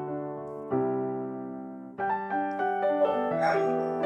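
Background music on electric piano: slow, sustained chords, with new notes struck about a second in and again halfway through.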